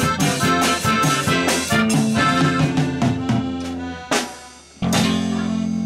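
Live norteño band of accordion, guitar, electric bass and drum kit playing the last bars of a song. A steady rhythm of chord strokes thins out, a sharp drum hit comes about four seconds in, then after a short gap the band holds a final sustained chord.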